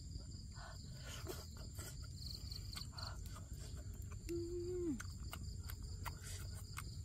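Forest insects calling steadily in two high, even tones, with scattered small clicks. About four seconds in there is a brief low hum, held level and then dropping in pitch as it ends.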